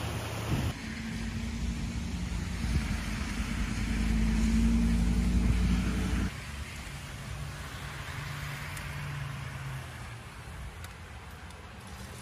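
A motor vehicle engine running with a steady low hum that grows louder and then cuts off abruptly about six seconds in. A quieter engine hum follows.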